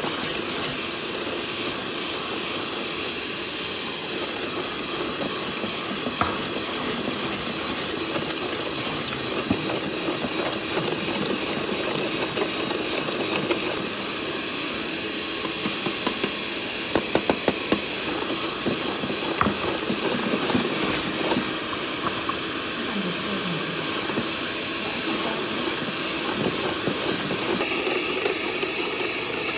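Electric hand mixer running steadily, its wire whisk beating egg whites with cream of tartar into a white foam in a stainless steel bowl. A quick run of clicks comes about 17 seconds in.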